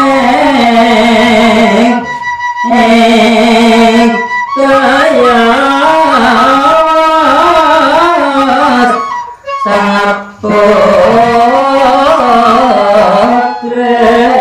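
Madurese tembang macapat sung by a man in long, wavering held notes, with a bamboo flute playing along; the line breaks off briefly about two seconds in and again near the ten-second mark.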